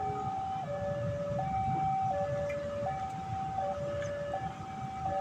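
Electronic railway warning alarm sounding a slow two-tone high-low pattern, each tone held about three-quarters of a second, over a low rumble.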